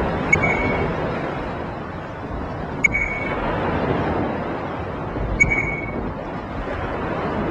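Steady rushing noise with a short, high ping about every two and a half seconds, four pings in all.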